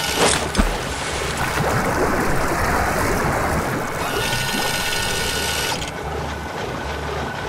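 Cartoon sound effect of water splashing and pouring as a fishing net is dipped into a pond and hauled out, strongest in the first half, after a short knock about half a second in.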